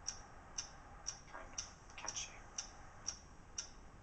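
Steady clock-like ticking, two ticks a second.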